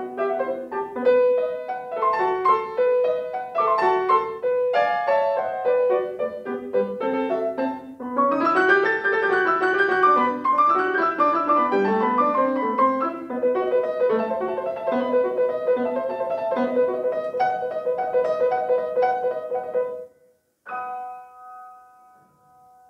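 Grand piano playing a classical piece, with quick runs of notes and chords. The playing breaks off about twenty seconds in, and after a short pause a single quieter chord rings out and fades away.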